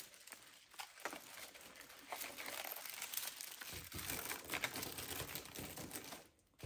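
Christmas greenery garland with berry sprigs rustling and crinkling as it is handled and wrapped around a lamppost, busier from about two seconds in, with a short pause near the end.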